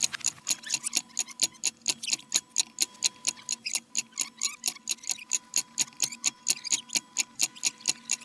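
Clock ticking fast and evenly, about five ticks a second, over a faint steady tone.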